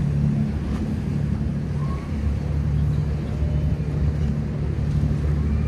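Boat engine running steadily with a low, even hum.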